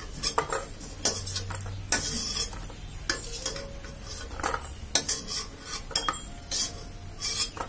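Metal utensil scraping and clinking against a frying pan as fried bori (dried lentil dumplings) are lifted out of hot oil, in about a dozen irregular knocks, with the oil sizzling underneath.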